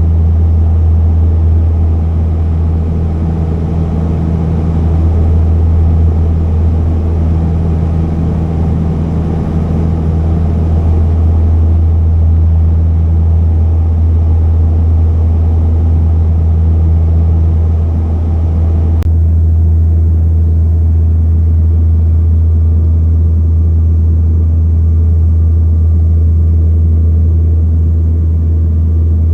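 Propeller airliner's engines droning steadily, heard loud inside the cabin, with a deep hum and a low steady tone. About two-thirds of the way through, the higher hiss drops off abruptly while the drone carries on unchanged.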